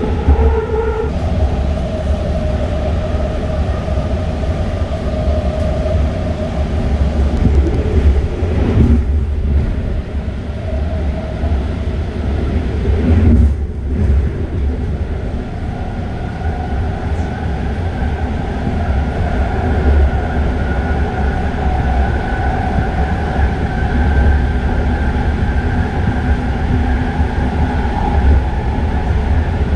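BART train running along the track, heard from inside the car: a steady low rumble of the wheels on the rails with a whine on top whose pitch climbs slowly over the second half.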